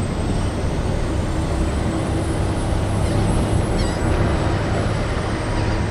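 Steady low engine rumble and hiss of a car ferry under way.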